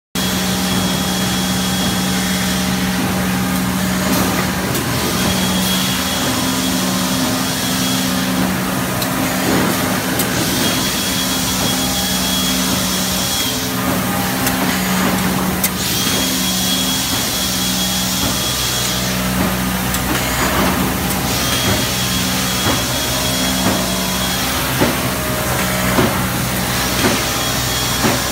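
Thermoforming line machinery running on a plastics plant floor: a steady low hum, with a high tone and a stretch of air-like hiss taking turns in a cycle that repeats about every five and a half seconds.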